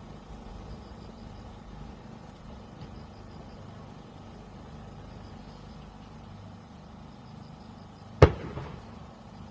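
A lull of faint, steady background noise, broken near the end by a single loud firework bang with a short echoing tail.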